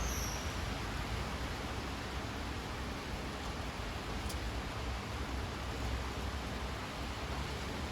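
Steady rain falling, an even hiss with a low rumble underneath and a single faint high tick about four seconds in.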